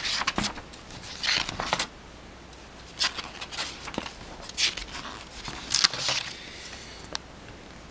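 Pages of a paper model-kit instruction manual being flipped by hand, with a quick rustle at each turn, about six turns in quick succession.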